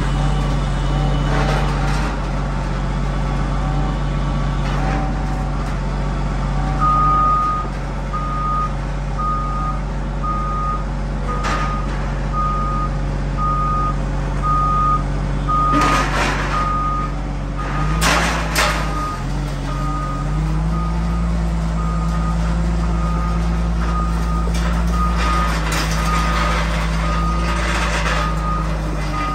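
Cat 930H wheel loader's diesel engine running under load, its backup alarm beeping about once a second from several seconds in as it reverses carrying a coil of scrap steel on its forks. The engine revs up past the middle, and a few metal clanks come through.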